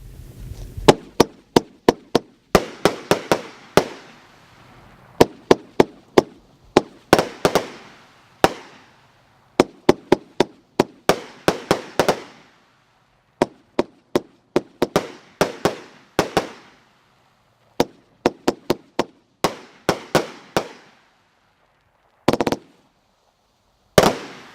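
Motor City Fireworks 'Colossal Pride' multi-shot firework cake firing: volleys of sharp bangs in quick succession, each trailing off briefly, with short pauses between volleys. Two dense clusters of shots come near the end.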